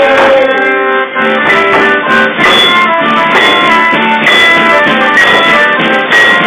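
Diatonic button accordion (organetto) playing a lively folk tune, with hand percussion such as a tambourine beating out a steady rhythm. A sung note trails off just after the start.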